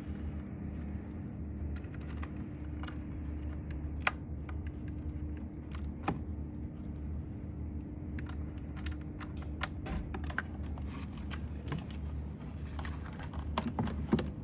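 Small, irregular clicks and rattles of wiring plugs being handled and seated in a cooler's control panel, with a sharper click about four seconds in and a cluster of clicks near the end, over a steady low hum.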